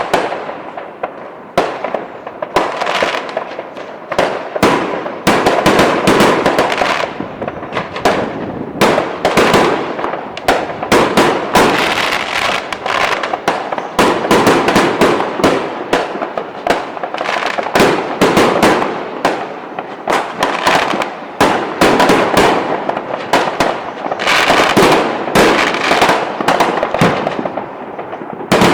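Fireworks going off in a dense, continuous barrage: many overlapping bangs and crackles, sometimes several a second.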